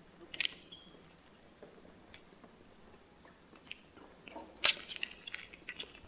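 Faint, irregular footsteps and clicks on a hard floor as a small group walks down a hallway, with one sharper click about four and a half seconds in.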